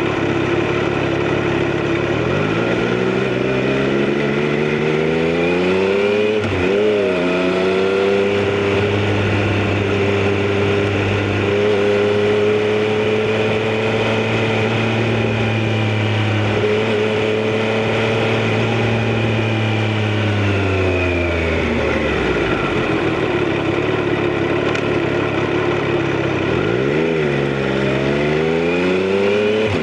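Triumph Street Triple RS's 765 cc inline-three engine being ridden: the revs climb, dip briefly for a gear change about seven seconds in, then hold steady for a long stretch. About twenty seconds in the revs fall away as the bike slows, then climb again near the end with another quick shift.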